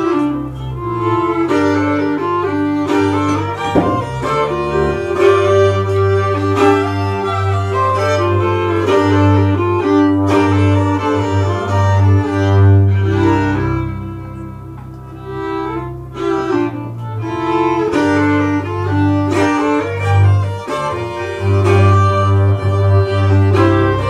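Instrumental folk tune on two fiddles over a double bass line, played live. The music drops quieter for a couple of seconds about halfway through, then builds back up.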